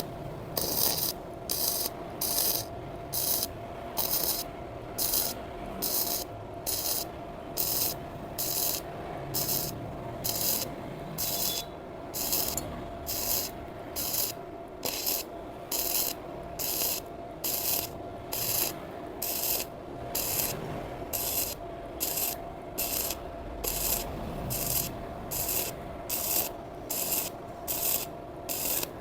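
Sekko MIG 250 welder's arc crackling in short, evenly spaced bursts, a little over one a second: the wire is being stitch-welded in pulses to build weld up across a gap between steel pieces, at about 120 A, a setting the welder finds a bit strong.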